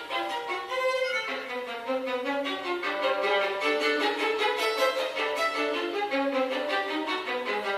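Solo violin playing a quick succession of short notes in a contemporary piece, growing busier and brighter about a second in.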